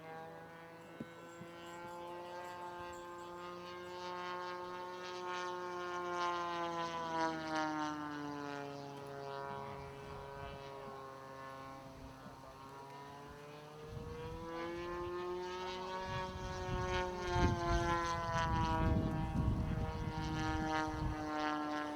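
Engine and propeller of a radio-controlled model Focke-Wulf 190 droning in flight, the pitch sinking and rising twice as it passes and changes throttle. A low rumble joins in over the last several seconds.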